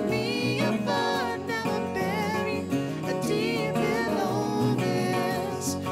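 Background music: a song with singing over acoustic guitar.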